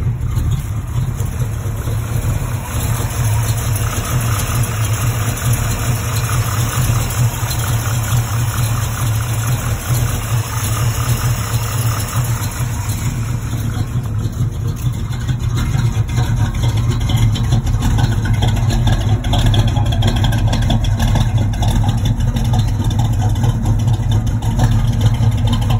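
Box Chevy's V8, fitted with headers and a freshly installed exhaust, idling steadily with a low, even exhaust note.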